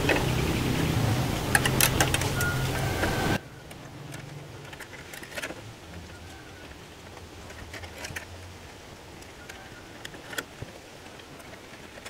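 Small clicks and knocks of hand-work on a bamboo-and-wire rat snare, over a steady low hum that cuts off suddenly about three seconds in; after that only scattered faint clicks remain.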